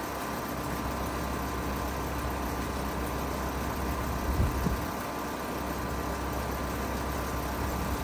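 2014 Payne PH13 2.5-ton heat pump outdoor unit running steadily in heat mode, its compressor and fan giving a steady low hum with a faint higher whine. Two brief low bumps about halfway through.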